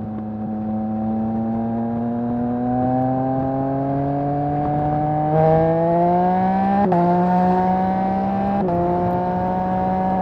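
Yamaha MT-09's three-cylinder engine through a Mivv full-system exhaust, revs climbing steadily under acceleration. It shifts up twice with the quickshifter, about seven and nine seconds in, each shift a sharp cut followed by a drop in pitch.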